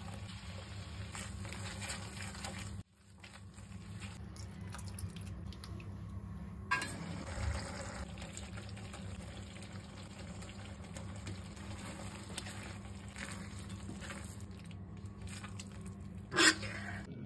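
Manchurian gravy bubbling and sizzling in an iron kadai while a silicone spatula stirs it, over a steady low hum. A sharp knock comes about 16 seconds in.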